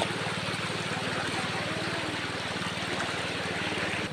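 Shallow stream running over rocks, an even rushing hiss, with a steady low pulsing rumble underneath.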